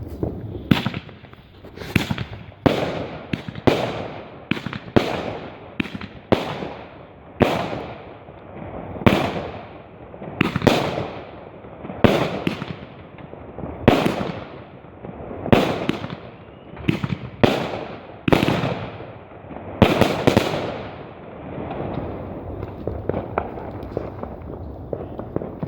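Fireworks going off, a run of sharp bangs about one a second, each trailing off in a rumbling echo. The bangs thin out near the end, leaving fainter rumbling.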